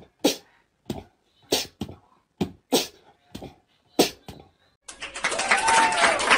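A corgi makes a run of about nine short, sharp huffs or barks, unevenly spaced. Background music comes back in about five seconds in.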